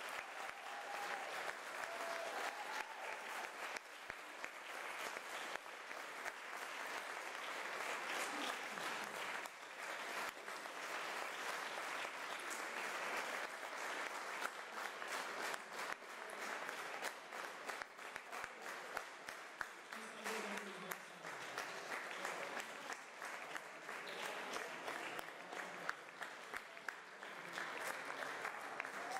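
Audience applauding: dense, steady clapping from a concert hall crowd that keeps going without a break.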